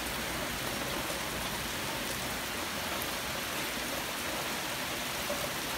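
Heavy, torrential rain falling steadily during a thunderstorm, an even hiss of downpour.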